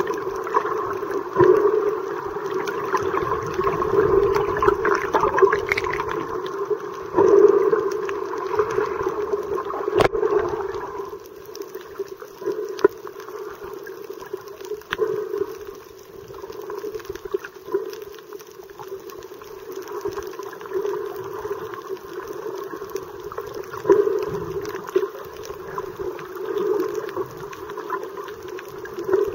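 Muffled underwater water noise picked up by a submerged camera while snorkelling: continuous sloshing and gurgling of water moving around it. It is louder for roughly the first eleven seconds, then calmer.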